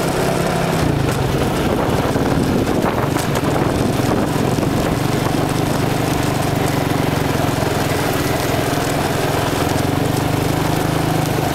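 ATV engine running steadily under way along a dirt trail, heard close up from the front rack, with a slight dip in engine speed a couple of seconds in.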